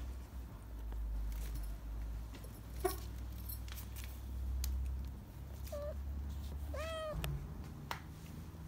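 Young orange tabby cat meowing: a short call about three seconds in, a brief one near six seconds and a fuller, arching meow about seven seconds in. A steady low rumble and a few faint clicks run underneath.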